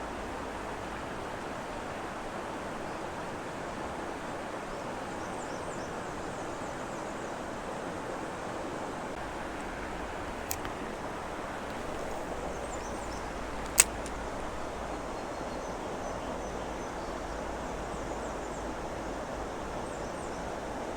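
Steady rush of flowing creek water, with two sharp clicks past the middle, the second louder.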